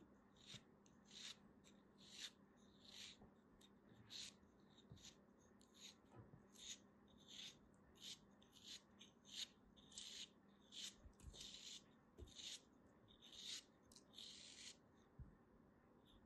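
Craft knife blade shaving slices off a cube of packed kinetic sand. Faint, crisp scraping strokes come one or two a second, with one longer scrape near the end.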